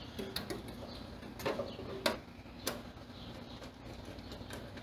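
A few light clicks and knocks from gas grill burners and their screws being handled and seated in the grill, over a faint steady background noise.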